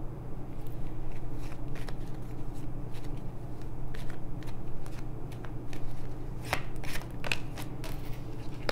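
A tarot deck shuffled by hand: irregular papery flicks and snaps of cards, busiest a little after halfway, and a card laid down on the table near the end.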